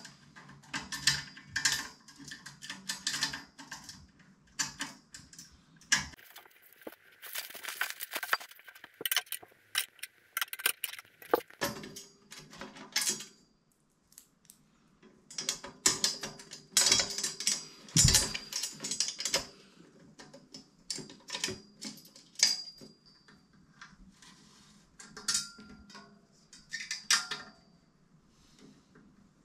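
Chrome steel-tube furniture frame being assembled by hand: metal tubes, fittings and screws clinking, rattling and knocking together in irregular bursts. A few pieces ring briefly, and there is one heavier knock about halfway through.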